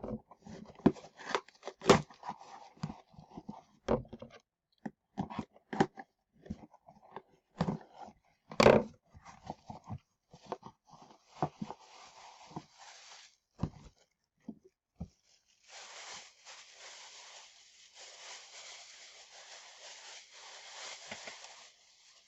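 A box and its packaging being opened by hand: scattered crackles, scrapes and tearing, then about six seconds of steady rustling from about fifteen seconds in.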